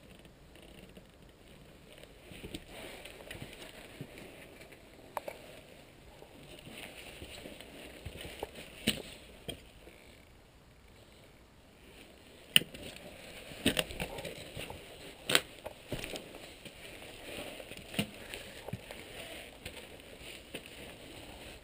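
Footsteps scuffing and crunching on gritty stone steps and rubble, with a handful of sharp knocks and clicks, most of them in the second half.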